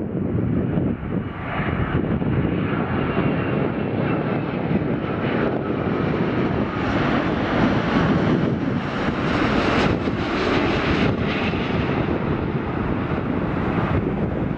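Boeing 787-8 Dreamliner on final approach, its twin turbofan jet engines running as it passes low overhead: a continuous rushing jet noise with faint steady whine tones at first, growing brighter and stronger toward the middle as the airliner comes closest.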